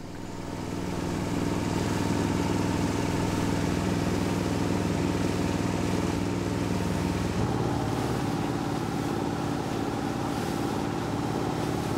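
Motorboat engine running steadily, fading in at the start, with its note shifting about seven and a half seconds in.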